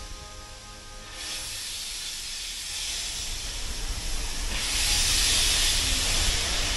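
Steam locomotive hissing steam as the train moves off slowly, heard from a carriage window along the train. The hiss grows louder about four to five seconds in, over a low rumble.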